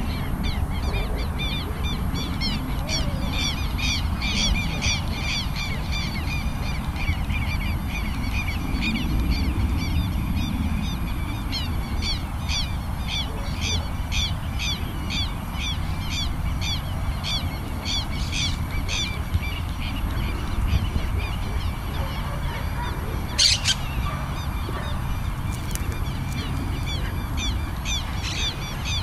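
Wild birds calling over an open field, short harsh calls repeated about twice a second for most of the time, with wind rumbling on the microphone. One sharper, louder sound stands out about two-thirds of the way through.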